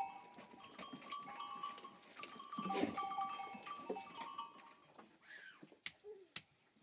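Bells on a flock of goats and sheep clinking and ringing in many short overlapping tones, louder about three seconds in and thinning out after about five seconds.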